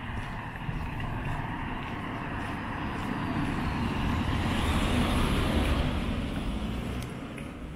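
A car driving past close by on a narrow asphalt lane: engine and tyre noise swell as it approaches, peak about five seconds in as it passes, then fade.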